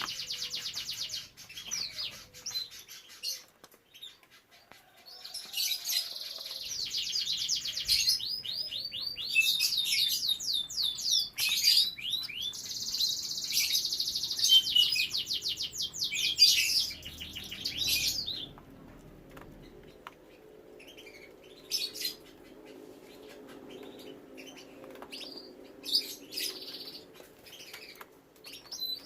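Domestic canary singing in fast, high rolling trills, with long runs of rapidly repeated notes through the middle, then only scattered short chirps.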